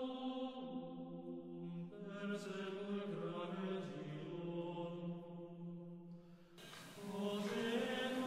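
Chant-style vocal music as a background track: long held sung notes that move slowly from pitch to pitch. It fades briefly about six seconds in, then a new phrase starts.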